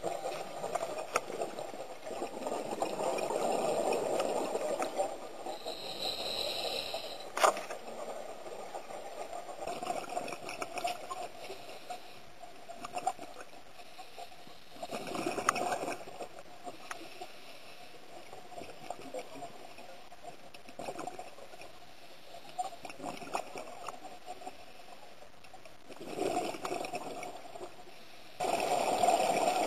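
Underwater gurgling of a scuba diver's exhaled bubbles, swelling in surges every few seconds, with one sharp click about seven seconds in.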